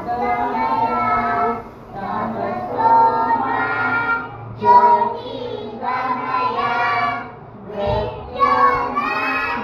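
Children singing, in phrases with short breaks between them.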